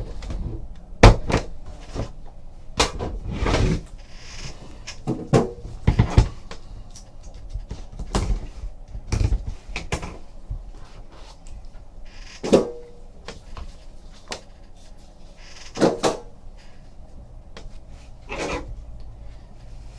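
A trading card hobby box being opened and its cards handled: irregular knocks, clicks and scrapes of cardboard and cards, with a louder knock every few seconds.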